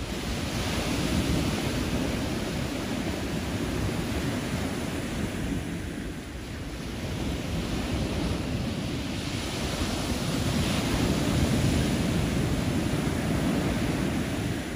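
Small waves breaking and washing up on a sandy beach, a steady surf hiss that swells twice, with wind rumbling on the microphone.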